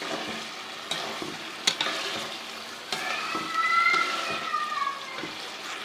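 Chana dal and masala frying in ghee in a pot, sizzling steadily as a spoon stirs it, with a few sharp clicks of the spoon against the pot. A high, slowly falling tone sounds for about a second and a half midway.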